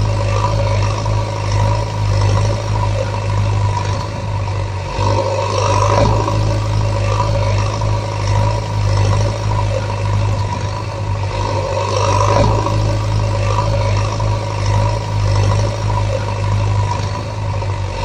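Truck engine running steadily with a low hum, swelling and easing in a pattern that repeats about every six seconds.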